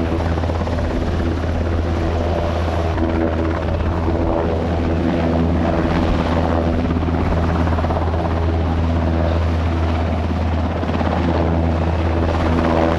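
NH90 military helicopter hovering, its rotor and turbines making a steady, loud drone with a layered pitched hum.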